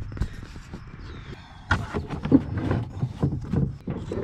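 Handling noise: irregular knocks, clunks and scuffs, most of them from about two seconds in, as the mower deck and the camera are moved about.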